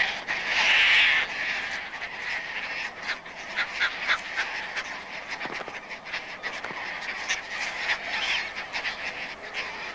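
A Caspian tern colony calling: harsh, grating cries, loudest in about the first second, followed by many short calls scattered through the rest.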